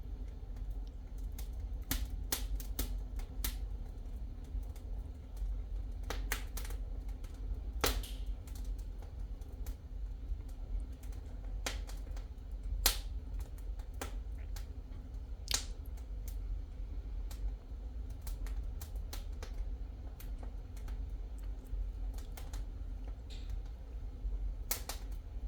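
Wood fire crackling in a fireplace: sharp, irregular pops and snaps every second or few, some in quick clusters, over a low steady rumble.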